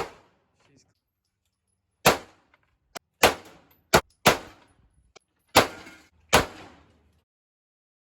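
A string of about seven gunshots, fired at uneven intervals of roughly half a second to a second and a half, each with a short echoing tail.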